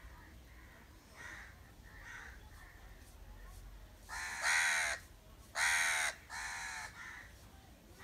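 House crow cawing: two faint caws in the first couple of seconds, then three loud caws in quick succession over the second half, the last one softer.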